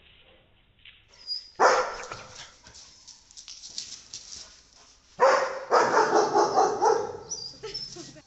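Dogs barking: a short loud outburst about a second and a half in, then a longer run of rapid barks from about five seconds in.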